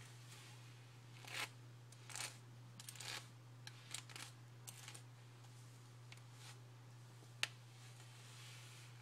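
A hairbrush pulled through long wet hair: a run of short, soft swishing strokes about a second apart, then a single sharp click a little after seven seconds. A steady low hum runs underneath.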